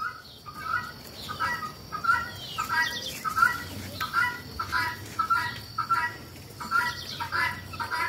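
Helmeted guineafowl calling over and over, a steady run of short, sharp, pitched calls at about three a second.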